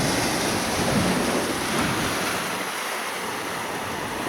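Sea surf washing steadily on a beach, with wind buffeting the microphone.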